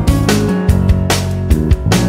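Background music with instruments over a steady drum beat.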